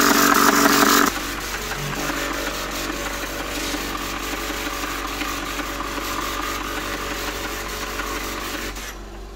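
Printronix P5005 line matrix printer printing, its shuttling hammer bank making a steady, dense mechanical buzz-clatter. It drops sharply in level about a second in, then runs on steadily and fades near the end.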